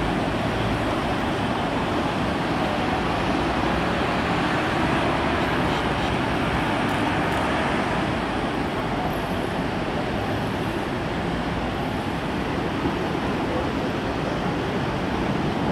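Steady, even roar of airport noise from distant taxiing jet airliners, with no distinct events.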